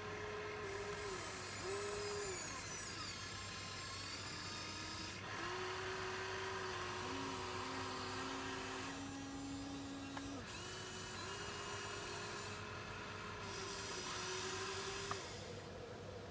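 Small electric motors of a Huina 1593 RC excavator whining, in several overlapping tones that start, stop and shift in pitch every few seconds as its functions are worked.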